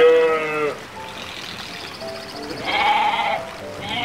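Sheep bleating three times over soft background music: a bleat that falls in pitch and ends just under a second in, a second one around three seconds in, and a third starting at the very end. The bleats have a wavering, quavering voice.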